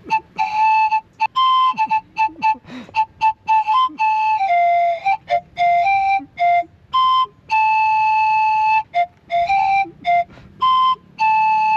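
A small flute played note by note, stepping among a few pitches: quick short notes at first, then longer held ones, like a simple tune being picked out by fingering.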